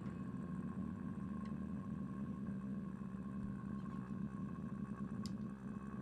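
Steady low electrical hum with a faint, thin higher tone and a few tiny clicks: idle amplifier hum while the band has stopped playing.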